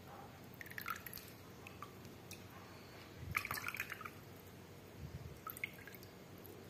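Wet paper napkin being lifted from a plastic tray of water and wrung out by hand, water dripping and splashing back into the tray in short spells, the longest about three seconds in. It is squeezed until only damp.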